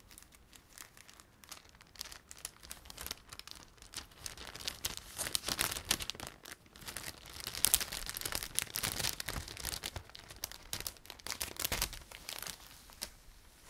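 Clear plastic packaging sleeves crinkling as they are handled, a dense run of quick crackles that is busiest in the middle.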